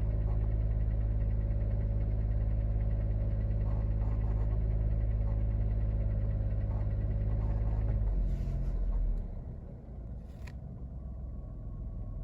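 Daihatsu Taft's engine running steadily with a low hum. It changes about eight seconds in and drops away sharply about a second later, followed by a single sharp click.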